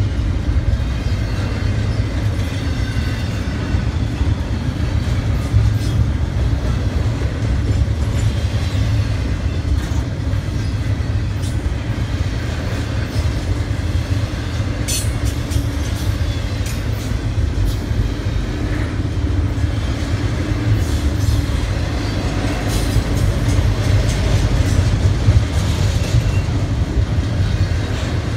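Freight train rolling past with a steady low rumble, wheels clicking over the rail joints and occasional short wheel squeals.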